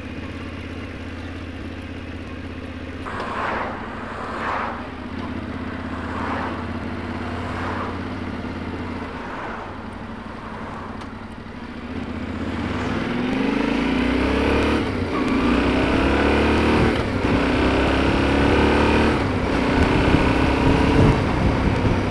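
Yamaha Ténéré 700's parallel-twin engine running at low, steady revs, then about twelve seconds in pulling away and accelerating, its pitch rising and falling back at each gear change. The engine is still being run in, so it is not revved hard.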